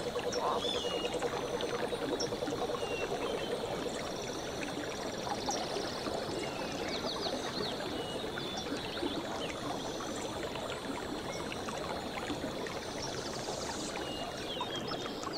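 Outdoor jungle ambience: a steady rushing hiss with scattered short, high bird chirps and whistles over it.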